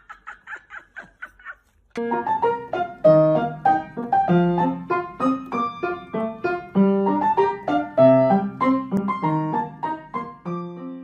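Light piano music with a bouncy melody over a bass line, starting about two seconds in. Before it comes a quick run of short high-pitched sounds that stops, then a brief gap.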